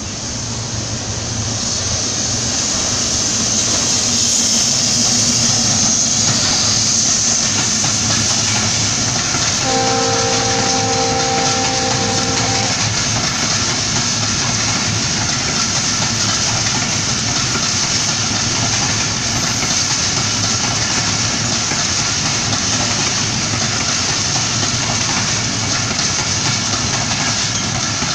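A locomotive-hauled passenger train running past close by, its wheels running on the rails in a steady rumble that grows louder over the first few seconds. Near the middle, the locomotive's horn sounds one chord of several notes for about three seconds.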